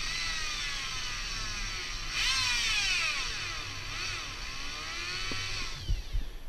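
Electric drill whining as it bores a hole in the van's body for the back camera's screws, its pitch rising and falling as the trigger is eased and squeezed; it stops shortly before the end, followed by a couple of low thumps.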